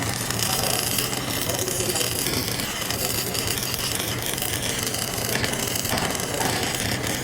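Welding arc crackling and hissing steadily, with a dense spatter of small cracks over a low hum.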